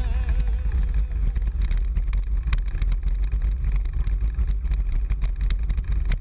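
Wind buffeting the microphone and a steady rattle of a road bike rolling over a rough dirt track, picked up by a handlebar-mounted camera. Guitar music fades out about a second in.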